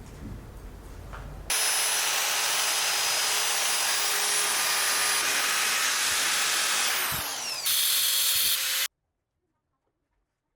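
Power tool running steadily at full speed. It starts about a second and a half in, dips briefly near the end, then stops abruptly.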